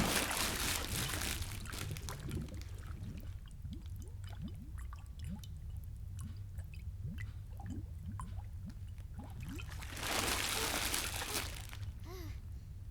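Water splashing and dripping: a splash at the start, then scattered drips, and a short rush of pouring water about ten seconds in.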